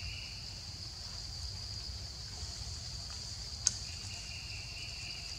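Insects in a steady high chorus, with a lower second buzz that drops out just after the start and returns about four seconds in. A single sharp click sounds near the end, over a low rumble.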